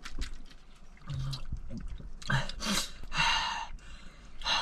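Several loud, sharp breaths drawn in and blown out through the mouth, a person cooling a mouth burning from extremely hot chilli chicken wings. Before them, soft clicks of chewing and handling food.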